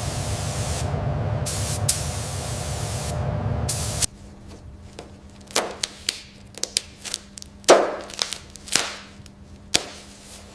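Compressed-air spraying, such as a paint spray gun, hissing steadily with a low rumble. About four seconds in it cuts off abruptly, and a quieter stretch follows of scattered sharp clicks, light knocks and short swishes of tools or parts being handled over a faint steady hum.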